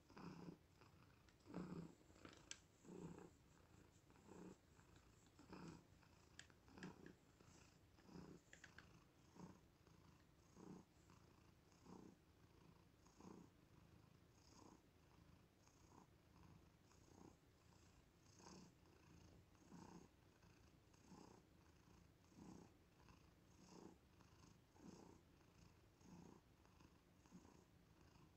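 Cat purring faintly and steadily, swelling and fading in a regular rhythm with each breath, a stronger pulse about every second and a half.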